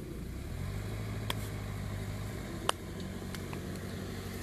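Off-road vehicle's engine running steadily at low revs, its hum growing stronger about a second in, with two sharp clicks in the middle.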